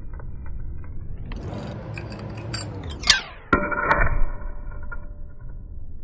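Zippo lighter's hinged steel lid: a rushing hiss for about two seconds, then a sharp metallic click about three seconds in and another half a second later, followed by a brief bright ring, the Zippo lid snapping shut and flipping open.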